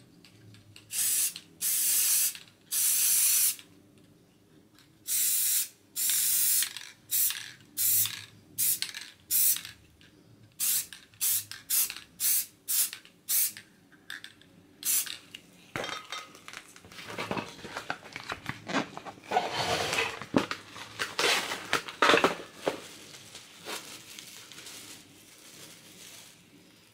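Aerosol spray-paint can hissing in separate bursts, the first few about a second long, then shorter and quicker ones, several a second. After that comes a stretch of irregular rustling and scraping that dies away near the end.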